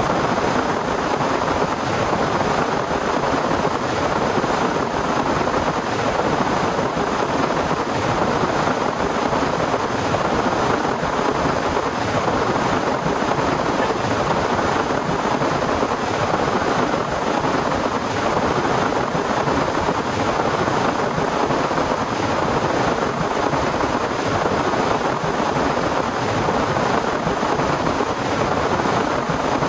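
Torrential rain with wind: a steady, dense hiss of heavy rainfall that keeps up without a break.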